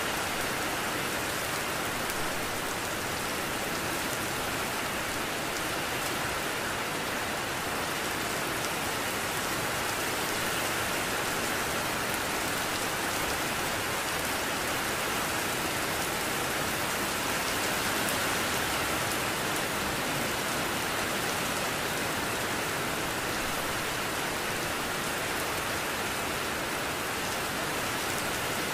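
Steady rainfall, an even hiss without breaks or single loud drops.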